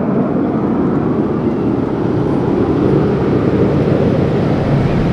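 Jet aircraft roar passing, a loud rush whose higher part fades away, leaving a low rumble.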